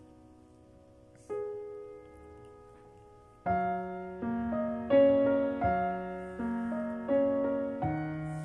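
Background piano music: a soft chord about a second in, then a slow melody of single struck notes, each fading away, from about three and a half seconds in.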